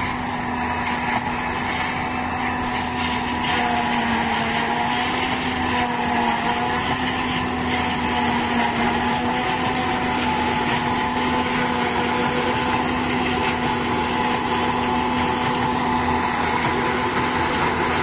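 Wheeled corn silage harvester running steadily, its engine holding a nearly even pitch over the noise of the machine working.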